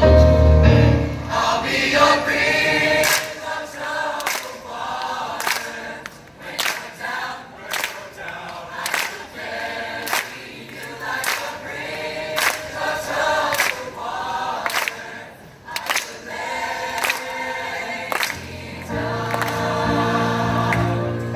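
A choir singing. The deep instrumental backing drops out about three seconds in, leaving the voices with sharp beats in time, about one and a half a second, until the full backing returns near the end.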